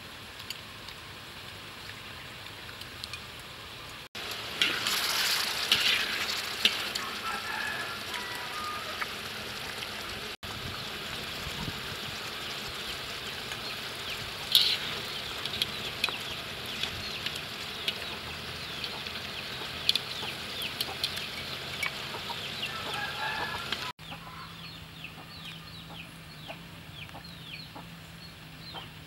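Chickens clucking off and on over a steady sizzle from a wok of stir-fried beef and vegetables.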